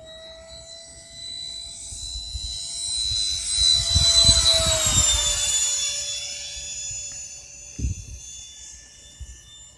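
Sapac EF2000 Eurofighter RC model jet's electric ducted fans whining in a low fly-by. The whine swells to its loudest about four seconds in, drops in pitch as the jet passes, then fades. A short low thump comes near the end.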